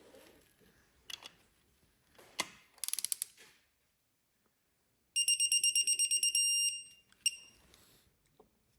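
Digital torque wrench beeping in rapid pulses as a cam cap bolt is brought up to its set torque of 10 N·m: a short run of beeps about three seconds in, then a longer one lasting about a second and a half. A few sharp clicks from the wrench come in between.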